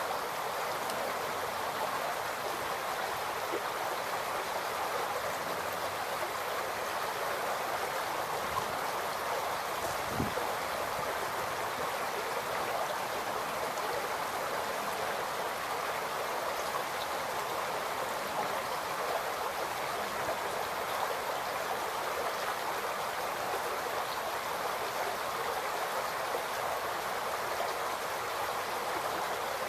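Shallow creek babbling steadily over rocks, an even, continuous rush of running water.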